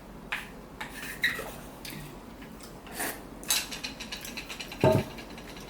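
Utensils clinking and scraping against a ramen bowl, gathering up the last bits, in a run of short sharp clicks with a louder knock about five seconds in.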